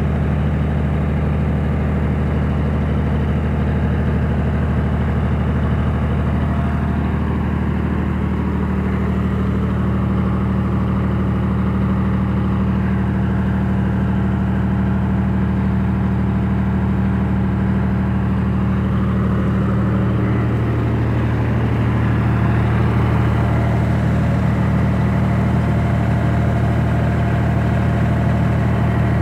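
New Holland tractor's diesel engine idling steadily, its low note shifting slightly about twenty seconds in.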